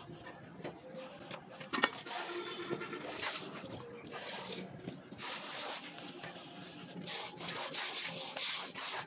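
A hand float scraping over wet cement plaster on a brick wall in repeated strokes, as the render is floated smooth.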